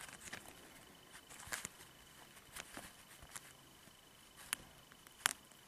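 Faint small clicks and rustles of fingers stretching a stiff plastic toy bridle onto a Schleich horse figurine, with two sharper clicks near the end.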